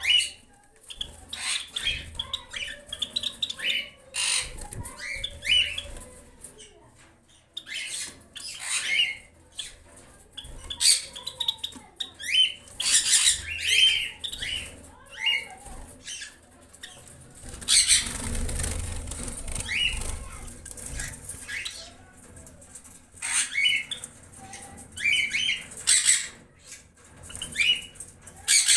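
Java sparrows in an aviary giving short, scattered chirps, mixed with bursts of wing-flapping and rustling, including a longer flurry a little past halfway.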